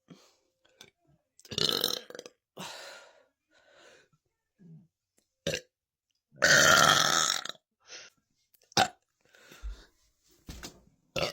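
A woman burping again and again, a string of separate burps of different lengths. The longest and loudest comes a little past halfway and lasts about a second.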